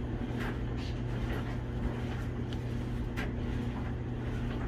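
Steady low electrical hum, with a few brief, faint rustles and scrapes of parts being handled.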